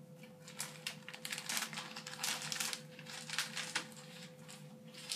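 Clear plastic packaging crinkling in a run of rustles as it is handled, dying away about four seconds in.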